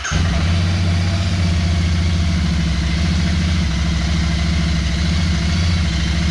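Royal Enfield Interceptor 650's 648 cc parallel-twin engine catching right at the start and settling into a steady idle with an even low pulse.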